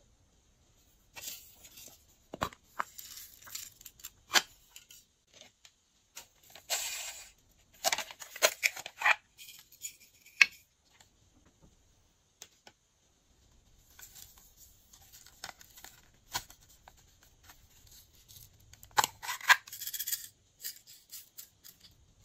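Glossy slime being worked by hand, giving irregular sticky crackles and sharp snapping clicks that come in spells with short quiet gaps.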